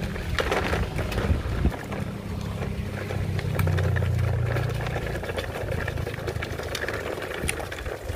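Large plastic toy truck rolling over gravel and dirt: a low rumble from the wheels with scattered small clicks and crunches of stones.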